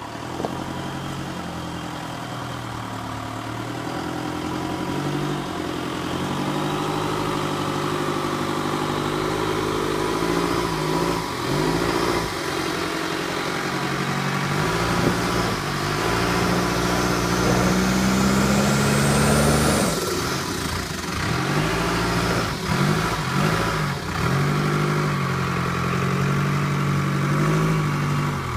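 Cummins 4BT four-cylinder turbo-diesel in a Toyota FJ40 Land Cruiser, revving up and down under load as the truck crawls up a muddy, rocky trail, growing louder as it comes closer. A high whine climbs over several seconds and drops off about twenty seconds in, and the revs keep rising and falling after that.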